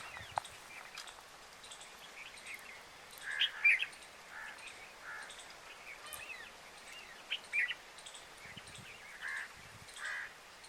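Wild birds calling: short chirps and notes at intervals over a quiet background. The loudest calls come about three and a half seconds in and again near seven and a half seconds.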